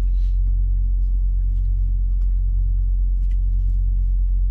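Steady low rumble of a parked semi-truck's diesel engine idling, heard inside the sleeper cab, with a few faint clinks of a fork on a plate.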